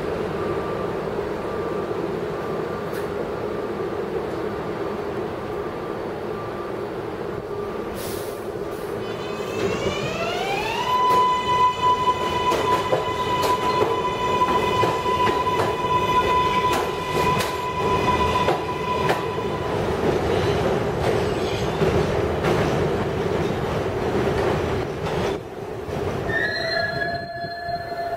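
New York City Subway trains of R142A and R188 cars running through an elevated station: a steady rumble of wheels on rail with frequent clicks. About ten seconds in, a whine from the train's electric propulsion rises in pitch, then holds one steady note for some eight seconds. Near the end, a new set of higher whines starts.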